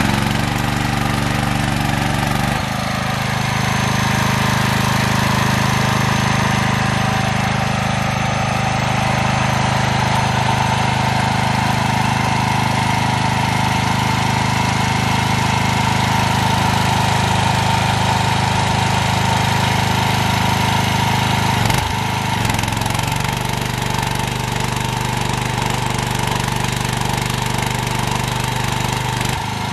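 Pro Quip 23 HP gasoline engine driving a 300-amp welding generator, running steadily under welding load, with the crackle of the stick-welding arc over it.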